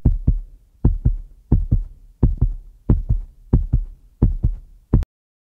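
Heartbeat sound effect: low double thumps, lub-dub, at about 85 beats a minute. It cuts off suddenly near the end.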